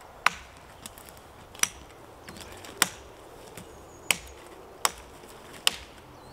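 Dry dead pine being delimbed: six sharp chopping strikes, spaced about a second apart, as side branches are cut off the pole.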